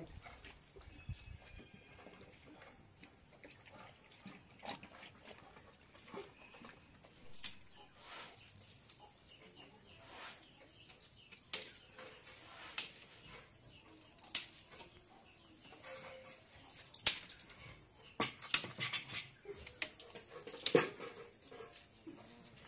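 Dry sticks being broken by hand for firewood: scattered sharp cracks and snaps, coming thicker and louder near the end.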